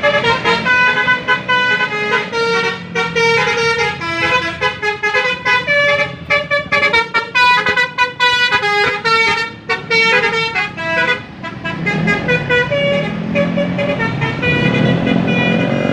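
An Indonesian bus's 'telolet' multi-tone air horn playing a quick melody of short toots that step up and down in pitch. From about twelve seconds in, the bus engine rumbles low beneath the horn.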